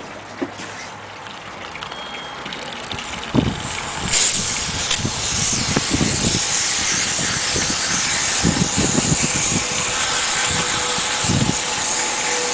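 Garden hose spraying a hard jet of water onto a boat's sea strainer basket, washing algae and mud out of the clogged basket, with the spray falling into the water below. The spray hiss comes on strongly about four seconds in and stays steady, with intermittent low rumbles under it.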